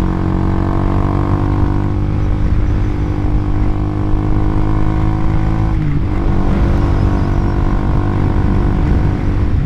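Single-cylinder Honda CBR150R engine breathing through an RX8 aftermarket exhaust under way at a steady cruise, a soft, smooth exhaust note. About six seconds in the engine pitch dips briefly and then settles again.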